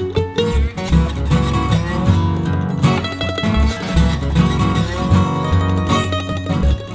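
Background music led by plucked acoustic guitar, with a steady bass line.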